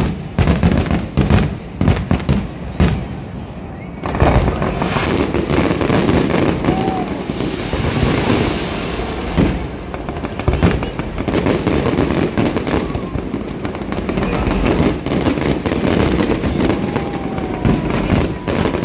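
Loud aerial fireworks display: a quick string of separate bangs, which about four seconds in becomes a dense, almost continuous barrage of bangs.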